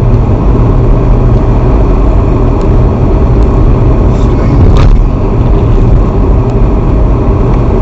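Steady engine and tyre rumble of a car being driven, heard from inside the cabin, with one short sharp click about five seconds in.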